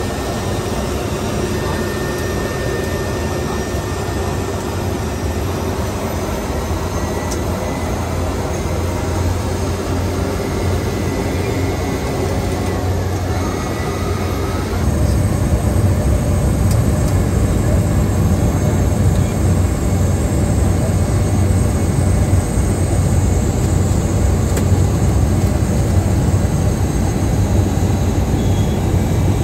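The Cessna Caravan's single turboprop engine running, heard inside the cabin as a steady low drone. It grows louder about halfway through.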